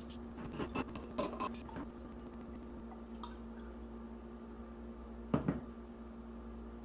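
A wine bottle being opened, with a cluster of small clicks and scrapes in the first two seconds, then white wine pouring into a wine glass. About five seconds in come two sharp knocks, the glass bottle being set down on the counter.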